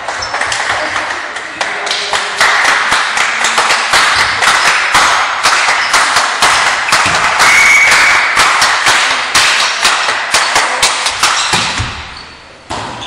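Spectators clapping in a quick, steady rhythm, with crowd voices under it; it dies away near the end.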